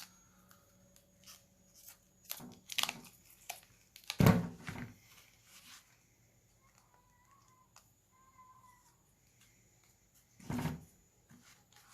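A plastic guitar pick scraping along the seam of a Redmi 7 phone's rear cover, with scattered clicks and snaps as the cover's clips come loose. There is a louder knock about four seconds in and another near the end as the phone is handled.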